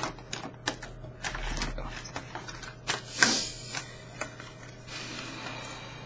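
Clear plastic packaging being handled, a series of sharp clicks and crinkles, with a louder crinkle about three seconds in.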